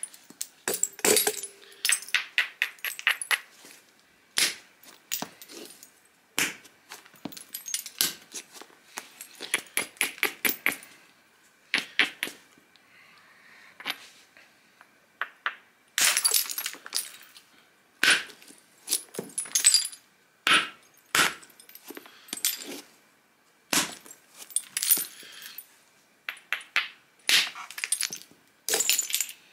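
A hammerstone strikes the edge of a stone biface disc during flintknapping, making sharp stony clicks and cracks. The strikes come in quick runs of several, with short pauses between runs.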